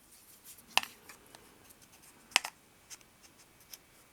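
Small hard clicks and ticks from a folding pocket knife and its aluminium handle being handled on a table, with two sharp louder clicks about a second and a half apart.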